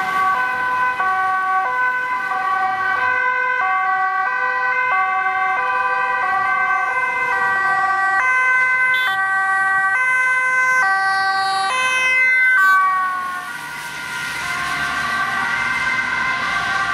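Ambulance two-tone siren, alternating between a high and a low pitch about every 0.7 s and growing louder as it approaches. About 13 s in, the pitch slides down and the siren grows fainter as the ambulance passes and drives away.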